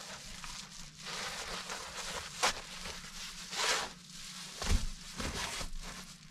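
Rustling and crinkling of silver foil-faced bubble-insulation window covers being handled and stacked, with a couple of louder crinkles near the middle.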